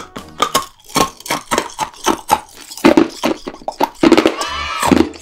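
Hard yellow rock candy crunched between the teeth: a quick run of loud, sharp crunches and cracks. About four seconds in, a short pitched sound effect rises and falls over the crunching.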